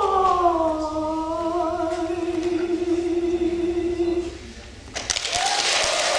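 Unaccompanied male voice singing the last note of a song: it slides down and is held for about three seconds, then stops. About a second later the audience starts applauding.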